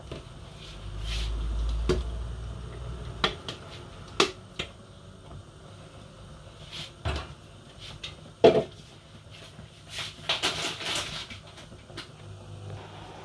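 Irregular household knocks and clicks in a small kitchen, about a dozen single taps with the loudest knock about eight and a half seconds in and a quick cluster of clatter around ten to eleven seconds. A low rumble runs for a couple of seconds starting about a second in.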